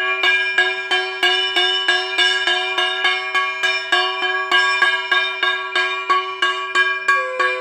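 Bells struck over and over in a fast, even rhythm, their ringing tones overlapping, as rung at a Hindu puja.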